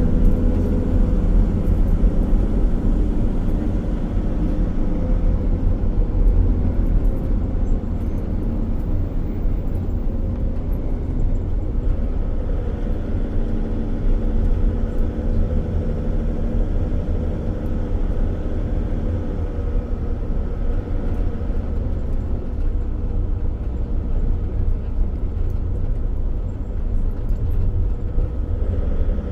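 Steady low rumble of a motor vehicle running, with a faint steady engine hum.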